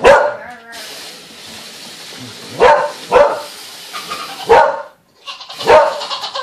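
Dog barking: five short, sharp barks, one right at the start and four more in uneven spacing across the middle and near the end.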